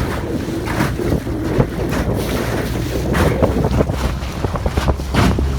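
Wind buffeting the microphone: a steady low rumble with scattered knocks and rustles.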